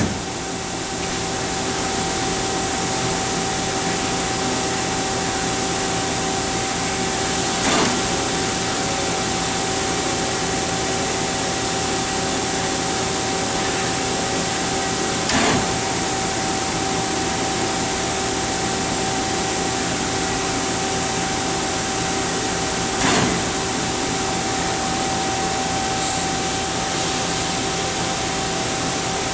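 Mazak Quick Turn Nexus 350 CNC lathe running: a steady hiss with a steady humming tone, and a short louder burst three times, about eight seconds apart.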